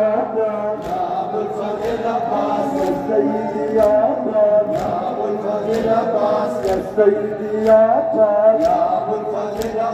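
Crowd of Shia mourners chanting a noha, a Muharram lament, together in long held lines, over a steady beat of sharp slaps from chest-beating (matam).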